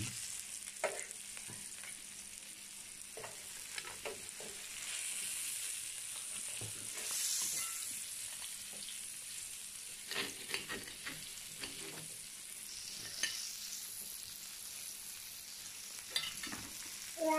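Meat and sausage sizzling on an electric raclette grill plate, a steady high hiss, with light clicks and scrapes of a fork moving the food on the plate now and then.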